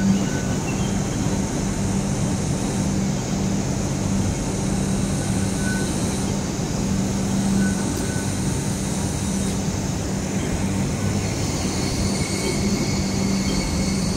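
Hong Kong Light Rail Phase 5 light rail vehicle approaching on curving track: steady running noise over a low hum, with faint wheel squeal from the curve coming in over the last few seconds.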